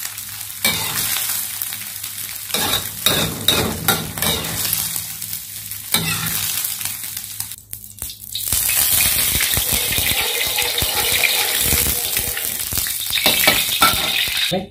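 Scrambled egg sizzling in a hot wok while a wire strainer and metal utensil scrape and clink against it. About eight seconds in, after a brief dip, cooking oil goes into the emptied wok and heats with a louder, steadier hiss.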